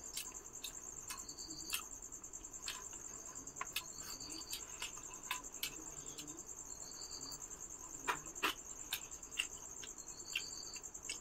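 Crickets chirping in a steady high trill, with a second, lower chirp coming back every few seconds. Over it come scattered sharp clicks and smacks of people eating rice and curry by hand, loudest a little after eight seconds in.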